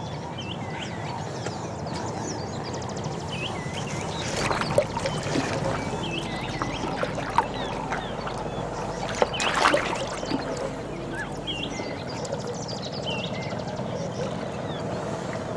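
Small birds chirping repeatedly in short, upward-curving notes over a steady low background rumble, with a couple of brief rustling noises about four and nine seconds in.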